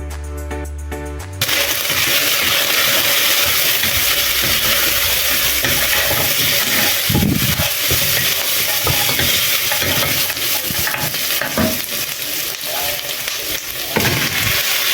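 Beef sizzling as it fries in a pot, with a few knocks of a spoon stirring it. Background music cuts off about a second and a half in.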